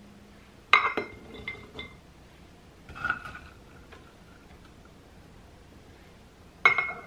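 A metal measuring cup clinking against the rims of glass mason jars as diced onion is tipped in: two sharp, ringing clinks, about a second in and near the end, with a softer scrape of the cup in the onion between them.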